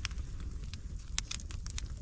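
Wood fire crackling, with irregular sharp pops over a low rumble, a cluster of them in the second half.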